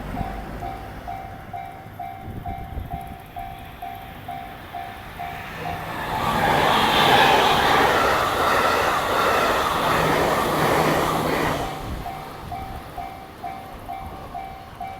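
Japanese level-crossing warning bell ringing, a steady run of evenly spaced dings. About six seconds in, a train passing over the crossing drowns it out with a loud rush and rattle of wheels on rail for about six seconds. Once the train has gone by, the bell is heard again.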